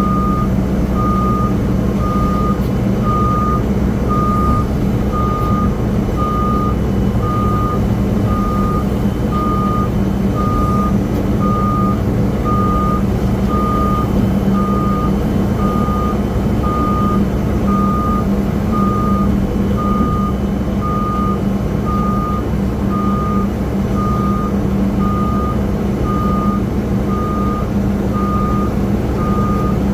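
Pushback tug's reversing alarm beeping steadily about once a second, over a continuous low rumble of engines.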